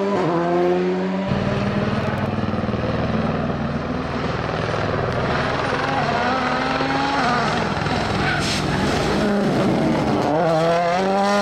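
Rally car engines accelerating hard, their pitch climbing, at the start and again near the end, with a denser mix of engine noise in between.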